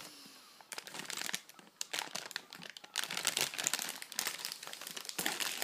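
Plastic packaging bag crinkling and rustling as parts are handled, in irregular bursts that start up about a second in and get busier in the second half.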